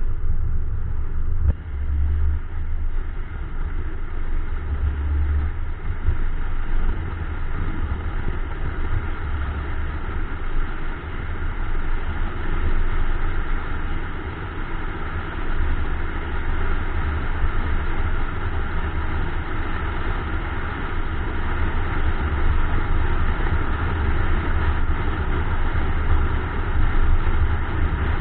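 A car driving, heard through an action camera mounted on the outside of the car: steady road and wind noise over a heavy, uneven low rumble.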